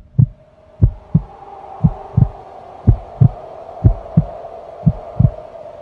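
Heartbeat sound effect: a steady run of low double thumps, lub-dub, about once a second, over a steady droning tone.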